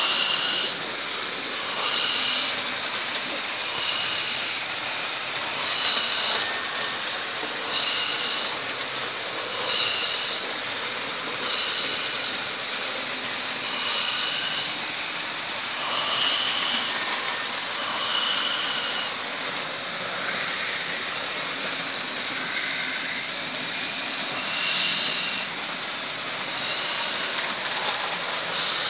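Several model trains running on a layout: a steady whir of small electric motors and wheels on track. A short, high-pitched tone repeats about every two seconds.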